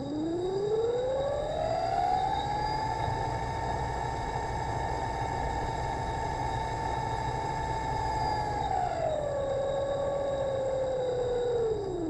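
Electric motor of a wire-run camera rig whining as it spins up, its pitch rising for about three seconds and then holding steady. About two-thirds through it drops to a lower steady pitch as the rig slows, and it starts winding down at the very end.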